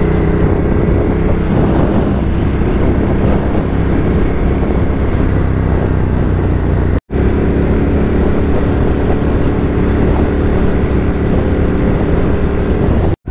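Ducati Hypermotard 950's L-twin engine running at a steady cruising speed. The sound drops out for a moment about seven seconds in and again near the end.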